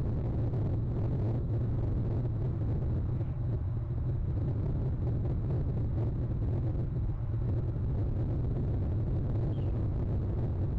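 Steady low rumble with a faint hiss above it, unchanging throughout, with no distinct calls or knocks.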